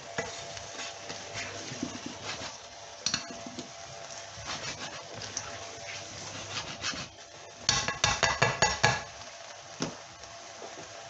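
A utensil stirring and scraping chopped vegetables and tomatoes around a frying pan, over a low steady sizzle, with scattered clicks against the pan. About eight seconds in comes a quick run of loud clattering knocks lasting about a second.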